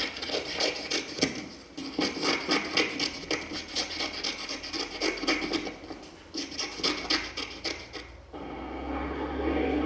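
Scissors cutting: a run of repeated rasping snips. About eight seconds in, the snips stop and a steady low rumble of a jet plane starts and grows louder.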